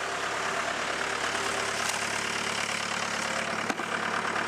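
Diesel engine idling steadily, with a single sharp click a little under four seconds in.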